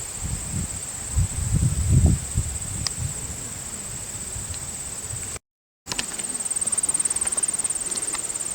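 A steady, high-pitched chorus of trilling insects, with a low rumbling noise on the microphone for about a second early on. The sound cuts out completely for a moment a little past the middle, and the insect trill comes back louder.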